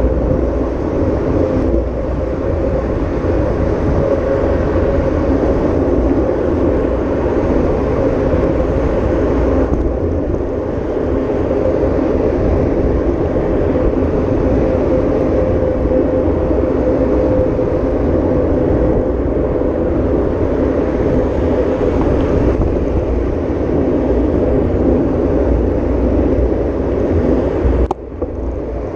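Vehicle driving off-road: a steady engine drone and rolling noise with a faint held tone, dipping briefly near the end.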